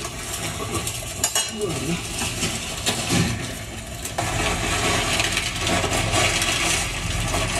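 Rustling and light knocking as harvested vegetables and sacks are handled and tipped out onto a cloth, getting denser about four seconds in.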